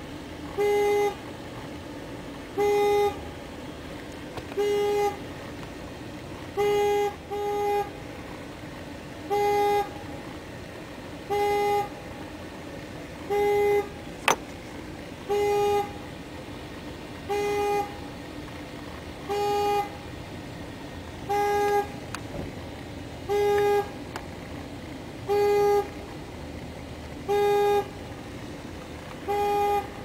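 Car alarm sounding the car's horn in short honks of a single steady pitch, about one every two seconds, with an occasional pair close together. One sharp click about halfway through.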